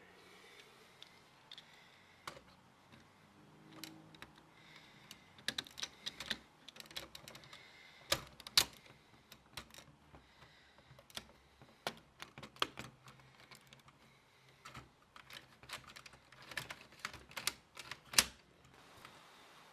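Lego plastic parts clicking and knocking as the brick rifle's mechanism is handled and worked: irregular sharp clicks, some in quick clusters, with two louder snaps about halfway and near the end.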